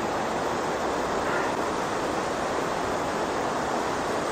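Steady, full rush of the River Irthing pouring over the Crammel Linn waterfall, a 7.6 m drop, heard close by from its head.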